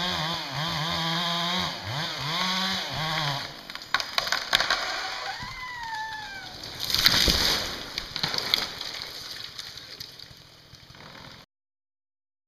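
Stihl MS 460 chainsaw revving up and down in the cut, then stopping. Sharp cracks of splintering wood follow, then a loud crash about seven seconds in, as the alder tree goes over and lands.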